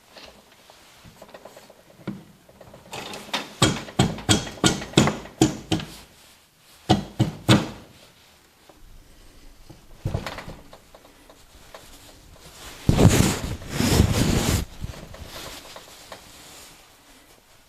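Workshop handling noises from engine case work: a quick run of sharp taps, about two a second, then a single knock, and later about a second and a half of louder rough rubbing or scraping.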